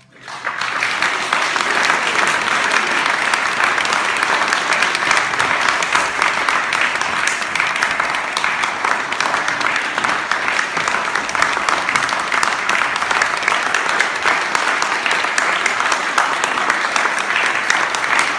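Audience applause, breaking out suddenly just as the last notes of the music fade and building within the first second into dense, steady clapping.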